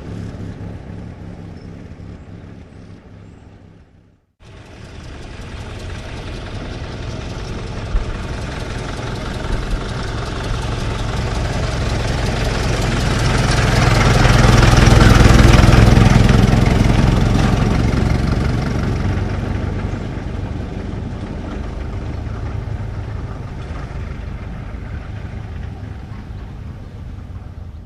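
Old car's engine running, fading out until a sudden cut about four seconds in. A second old car's engine then grows steadily louder to a peak about halfway through and fades away again.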